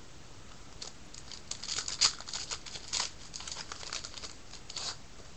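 A trading-card pack wrapper being torn open and crumpled by hand. A run of crinkling and crackling starts about a second in and lasts almost to the end, sharpest about two seconds in.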